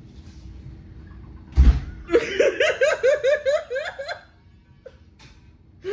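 A woman's laughter: a sudden burst about one and a half seconds in, then a run of about ten quick, high "ha" pulses laughed behind her hand, fading out about four seconds in.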